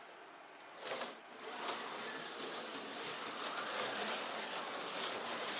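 A short plastic clatter about a second in, then the steady whir of small electric slot car motors with fine ticking as HO slot cars run on the plastic track.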